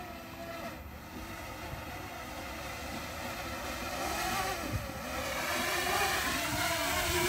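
DJI Mini 2 drone's propellers buzzing as it descends toward the pilot to land, growing louder as it comes closer, its pitch wavering and then settling into a steady tone near the end.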